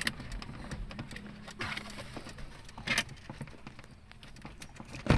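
Plastic windshield A-pillar trim of a Suzuki Celerio being pulled off the pillar: a few scattered plastic clicks and knocks, the loudest a sharp snap right at the end as the trim comes loose from its clips.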